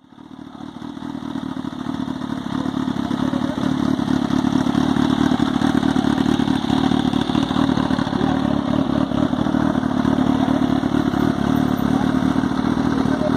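Kawasaki H2's supercharged 998 cc inline-four motorcycle engine running steadily, growing louder over the first few seconds and then holding an even level.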